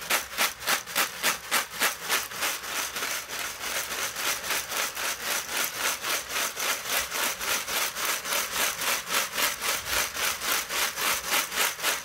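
Freshly cut PVC pipe rings rattling and scraping in a wire-mesh basket shaken back and forth, about four to five shakes a second, sifting off the plastic cutting chips. The shaking stops abruptly at the very end.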